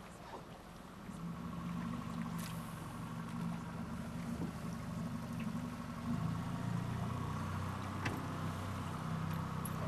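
Boat motor running steadily at low speed, louder from about a second in and again about six seconds in, with a few light clicks over it.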